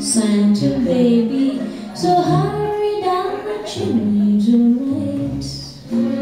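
A song playing, with high sung vocals moving in held, stepped notes over a bass line and light percussion.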